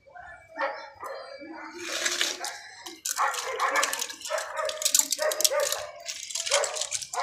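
A dog barking repeatedly, short barks about once or twice a second.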